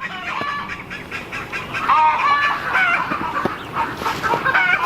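A flock of chickens and ducks calling, many short overlapping clucks and squawks that grow busier and louder about two seconds in.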